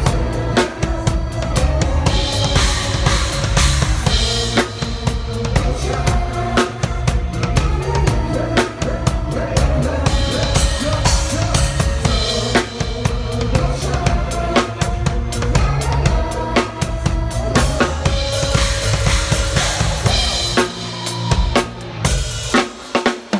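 Drum kit played along with a pop song backing track: steady kick and snare strokes under the music, with brighter cymbal-heavy passages about every eight seconds. The low end thins out briefly near the end.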